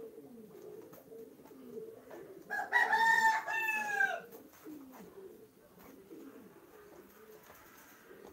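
A rooster crows once, loudly, about two and a half seconds in, the call falling in pitch at its end. Domestic pigeons coo softly throughout.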